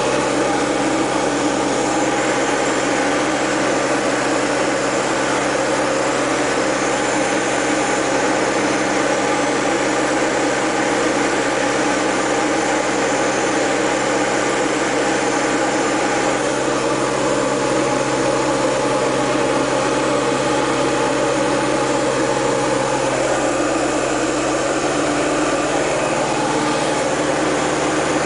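Steady drone of a Diamond DA20 Eclipse's four-cylinder Continental piston engine and propeller in cruise flight, heard inside the cockpit with air noise over the canopy. The engine note shifts slightly about three-quarters of the way through.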